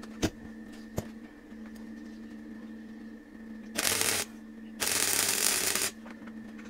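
MIG welder arc crackling in two short welds on tube, the first about half a second long and the second about a second long, over a steady background hum.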